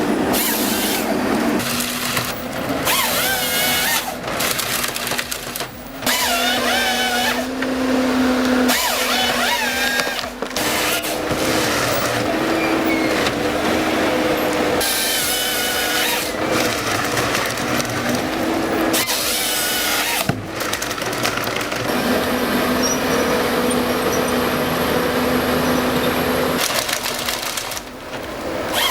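Chain saw running at high revs and cutting through timber, its pitch stepping up and down as it loads in the wood, with a wavering high whine over it. It comes in several short stretches broken off abruptly.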